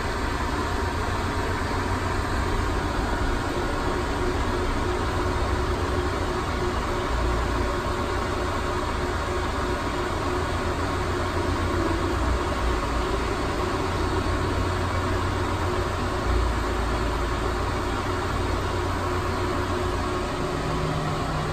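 Steady mechanical hum over a low rumble, with a few faint steady tones and no distinct events.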